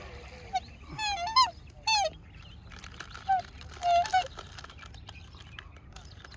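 Black swans calling: a run of short, pitched calls, about five over the first four seconds or so, then only faint background.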